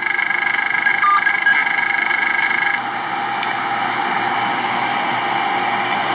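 Steady hum of a vehicle idling, heard from inside, with a buzzy tone over it. The hum flutters for the first few seconds, then smooths out about three seconds in.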